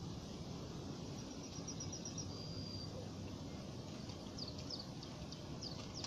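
Outdoor ambience with a steady low background rumble. Small birds chirp high over it: a quick run of short notes about a second in, then a brief held whistle, then a few short downward-sliding chirps near the end.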